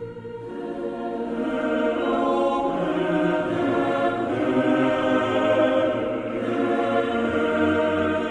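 Ambient background music of choir-like voices holding sustained chords. It swells up over the first two seconds and then stays steady.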